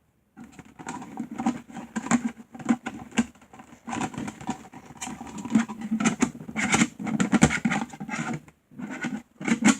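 Small plastic toy figurines clicking and clattering as they are handled and rummaged through, a fast, irregular run of light knocks.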